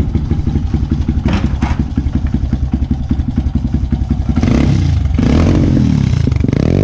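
Dirt bike engine idling with a steady fast firing beat, then revved near the end, its pitch rising and falling. Two short clatters come about a second and a half in.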